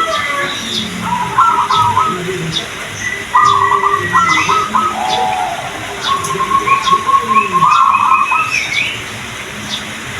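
Zebra doves (perkutut) cooing in repeated short phrases of quick notes, with higher whistles and brief chirps among them.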